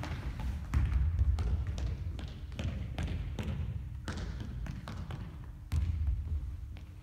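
Soccer ball being juggled: repeated soft kicks and taps of the ball off foot and knee, irregular at about two or three a second, with the ball dropping and bouncing on a wooden gym floor.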